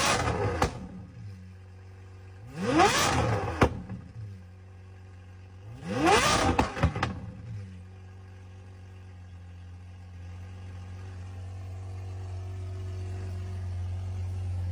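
Lamborghini Aventador SVJ V12 revved while cold: a rev falls away at the start, two short throttle blips come about 3 and 6.5 seconds in, and the engine idles between them, its level slowly rising. The revs stay well short of the redline, which the owner puts down to the engine not yet being unlocked.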